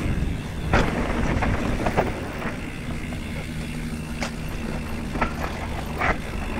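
Mountain bike rolling fast down a dirt forest trail: a steady rumble of tyres over the ground, with a few sharp clacks and knocks as the bike rattles over bumps.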